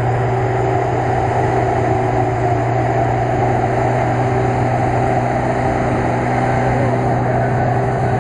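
GAZ-66 truck engine running steadily at an even speed, with no revving.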